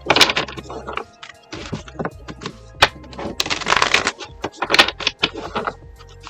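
Tarot cards being shuffled and handled, a rapid papery clicking in several short bursts, over background music.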